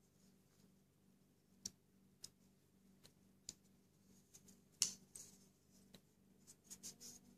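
Faint, scattered clicks and light handling noises from an Ontario RAT Model 1 folding knife being worked open and closed in the hands, the sharpest click about five seconds in.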